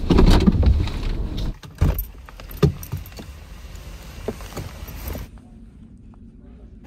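Low rumble of a Toyota 4Runner rolling into a parking space. It breaks off suddenly after about a second and a half, giving way to scattered clicks and knocks of things handled inside the parked car, one sharp knock about two and a half seconds in. The last second or so is quiet and muffled.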